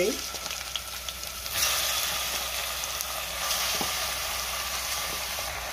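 Chicken pieces sizzling in hot oil with browned onions in a steel pot. The sizzle gets louder about a second and a half in as more pieces go in, then holds steady.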